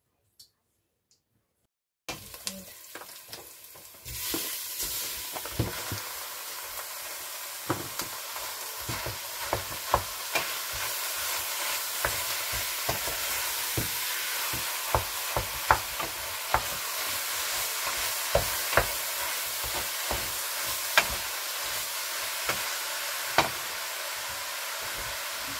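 Chopped onion and minced meat frying in a metal pot, a steady sizzle that starts about two seconds in and grows louder at about four seconds. A wooden spoon knocks and scrapes against the pot again and again as the meat is stirred.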